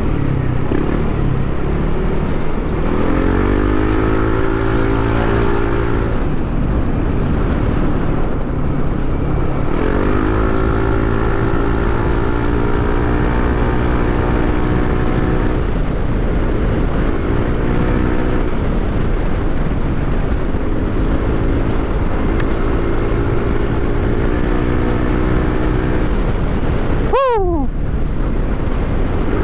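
Yamaha NMAX 155 scooter's single-cylinder engine running on the move, its pitch rising as it accelerates several times and then holding steady, over a steady rumble of wind on the microphone. A brief sharp falling sweep sounds near the end.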